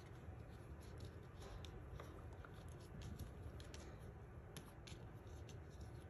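Faint rustling and scattered light ticks of hands handling a cardstock panel and baker's twine while tying a bow.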